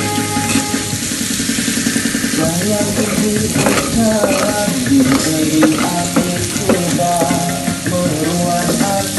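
Chili sambal sizzling in hot oil in a non-stick frying pan while a wooden spatula stirs and scrapes it round. Music with a melody plays in the background throughout.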